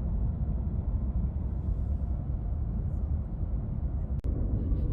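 Steady low rumble of car road and engine noise heard inside the cabin while driving, broken by an abrupt cut about four seconds in.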